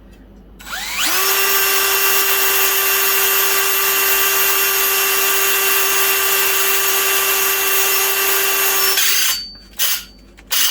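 Electric drill drilling out a brass rivet in a quarter light window frame. The motor spins up with a rising whine about a second in, runs at a steady pitch for about eight seconds, then stops, followed by two short bursts near the end.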